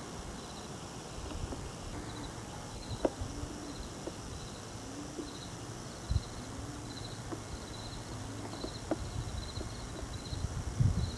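Insects chirping outdoors in short, repeated high pulses, over a low wind rumble with a few faint knocks.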